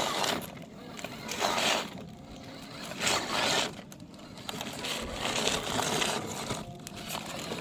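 Radio-controlled model truck's motor and tyres spinning in repeated short bursts of gritty scrabbling, about half a second each: the wheels are slipping and the truck fails to climb the incline.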